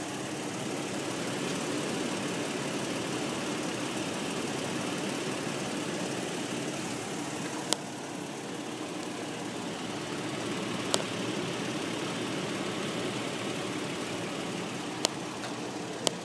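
2008 Toyota Tacoma pickup's engine idling steadily, with four short sharp clicks during it.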